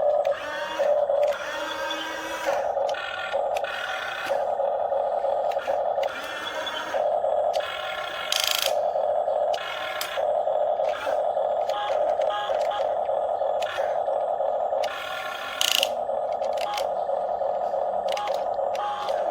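Small electric motors and gearboxes of a radio-controlled excavator whining in short on-off spells as its controls are worked, with brief harsher grinding bursts from time to time.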